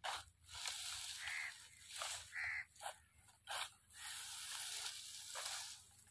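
Dry crop stalks rustling and crunching in a run of uneven strokes as a wooden pitchfork rakes and tosses them. Two brief higher calls sound about a second and two and a half seconds in.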